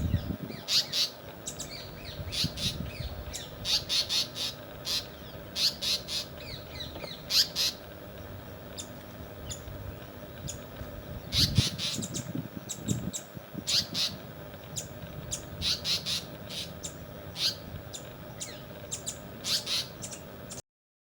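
Birds calling: many short, sharp high calls repeated irregularly, often in quick clusters. The sound cuts off suddenly near the end.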